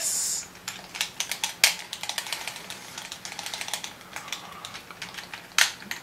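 Video game controller buttons being pressed rapidly: a fast, irregular run of small plastic clicks, two of them much louder, about a second and a half in and near the end. A short hiss right at the start.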